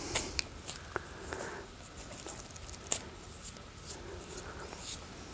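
Unretted flax straw being pinched and rubbed between the fingers, giving soft rustling and a few scattered small crackles and snaps as the woody shive breaks up around the fiber.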